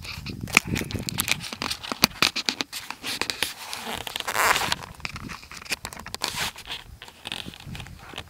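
Fabric rustling and rubbing right against a phone's microphone, with irregular clicks and knocks from handling, and a louder stretch of rustle about four and a half seconds in.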